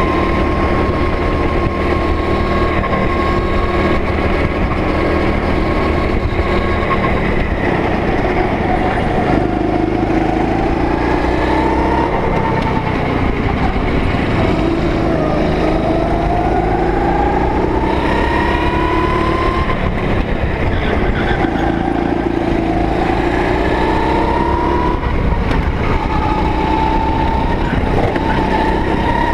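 Loud go-kart engine heard close up from a camera mounted on the kart, its pitch rising and falling again and again as the driver accelerates out of corners and lifts off into them, over a rough rumble from the kart.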